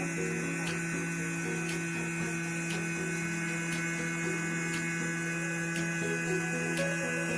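CNC lock-hole drilling machine running with a steady electric hum and faint ticks about once a second.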